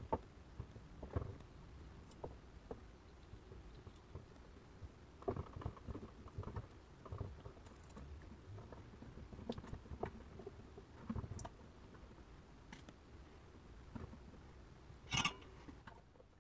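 Faint handling noise: small clicks, taps and rustles as wires and parts are moved about on a carbon-fibre quadcopter frame on a wooden bench, with a brief louder rasp near the end.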